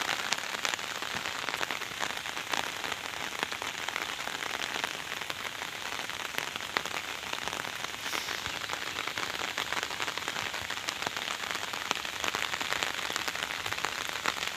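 Steady rain falling on floodwater: an even hiss dotted with many sharp ticks of single drops.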